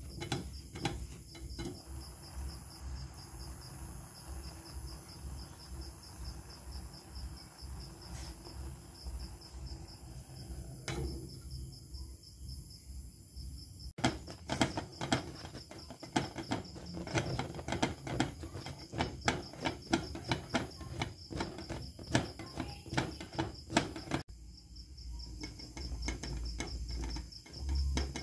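Covered stainless-steel pot of fish in water boiling hard on a gas stove, bubbling with a dense stream of irregular clicks and low rumbles that grow louder in the second half. Crickets chirp steadily throughout.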